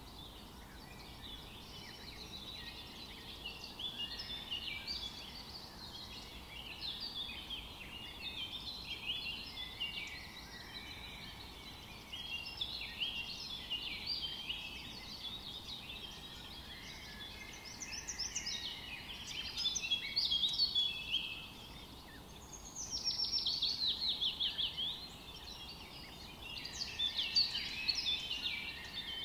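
Small birds chirping and singing continuously, with a quick run of falling notes about two-thirds of the way through.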